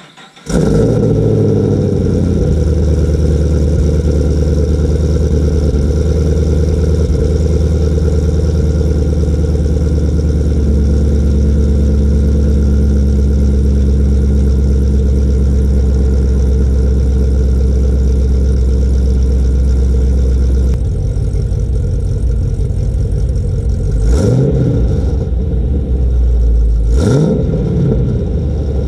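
A 2010 Camaro SS's LS3 V8 is cold-started through newly fitted NPP mufflers. It catches about half a second in and runs at a fast cold idle, which drops to a lower idle around twenty seconds in. Near the end it is revved twice.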